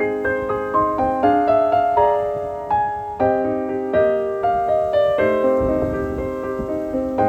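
Background piano music, a gentle melody of notes struck a few times a second, each decaying.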